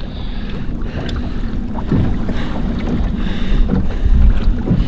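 Fishing boat's motor running steadily, with wind on the microphone and a few soft knocks.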